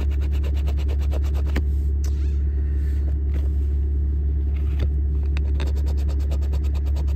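A coin scratching the latex off a scratch-off lottery ticket in quick repeated strokes. Under it runs a louder steady low rumble of the car.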